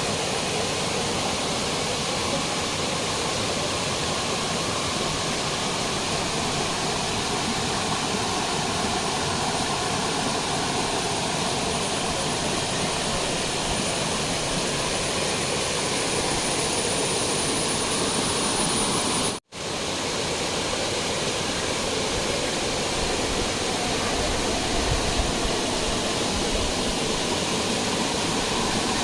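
Steady rush of a waterfall, water pouring and splashing over rock, broken off for an instant about two-thirds of the way through.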